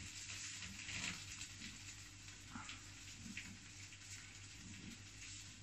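Faint sizzling from a frying pan of German-style potatoes, with a few soft scrapes of chopsticks as the potatoes are pushed out into a small dish.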